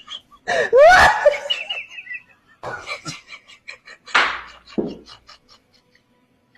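A high-pitched voice cries out with a wavering pitch, then a run of short laughing pulses that fades away.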